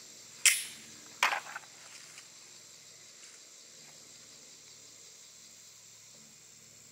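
Two sharp knocks in the first second and a half, then quiet outdoor background with a steady high-pitched buzz of insects.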